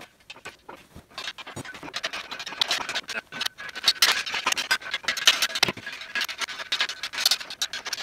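Metal hardware being worked by hand on a steel engine hoist: rapid, irregular clicks and scrapes of a wrench on the nuts and bolts holding the side support rods, thickening about two seconds in.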